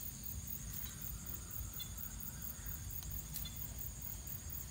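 Insects chirping in a steady, high-pitched trill with a fast, even pulse, over a faint low rumble.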